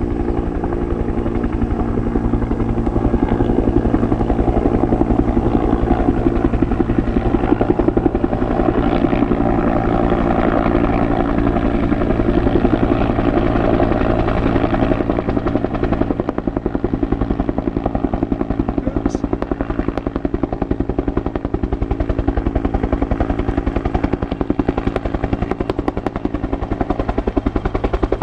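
Bell 205A-1 helicopter flying low overhead with a longline slung beneath it: the rapid, even thudding of its two-bladed main rotor over the steady hum of its turboshaft engine, loudest in the first half.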